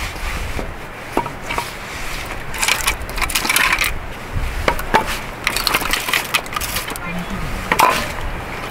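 Split firewood being handled: sticks knocking and scraping against each other, with several sharp wooden clicks.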